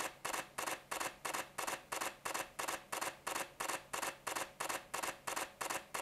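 Canon EOS R6's mechanical shutter firing in low-speed continuous drive, a steady run of even clicks at about three frames a second.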